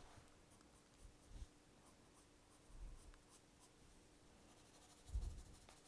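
Graphite pencil scratching faintly on drawing paper in short shading strokes, with a few soft low thumps, the loudest about five seconds in.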